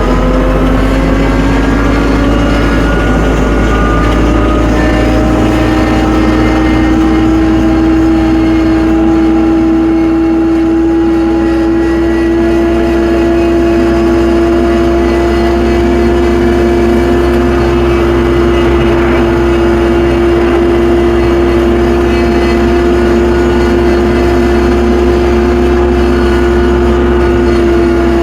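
Tractor engine revving up in the first couple of seconds, then running steadily at high revs.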